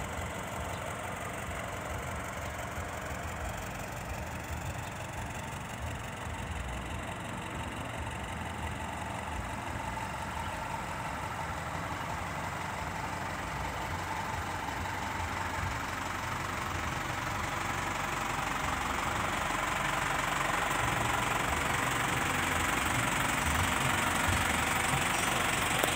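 Isuzu NQR bus's diesel engine running steadily, growing louder over the last ten seconds or so.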